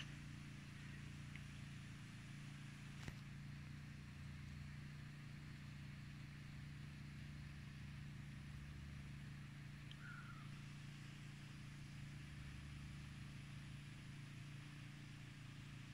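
Faint steady low hum, like machinery or distant traffic, over quiet outdoor background noise, with one sharp click about three seconds in.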